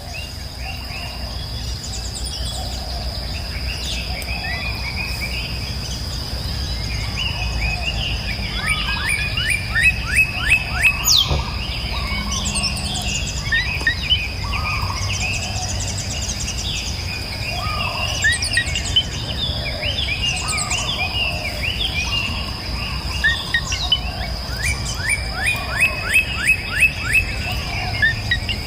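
Baby birds chirping and calling, with two bursts of fast repeated chirps, as nestlings do when begging to be fed. A steady high-pitched whine runs underneath.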